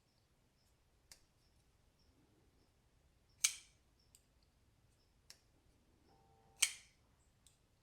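Kizer Mercury folding knife being flicked open on its new caged ceramic pivot bearings: two sharp metallic snaps, about three seconds apart, as the blade swings out and stops, with fainter clicks between as it is closed again.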